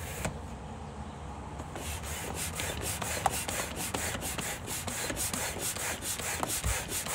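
Bestway foot air pump being worked to inflate the pool's top ring: rapid, even strokes of rushing air, starting about two seconds in.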